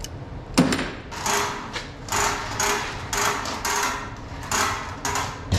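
A sharp click, then a run of about eight rough scraping strokes on sheet metal, roughly two a second.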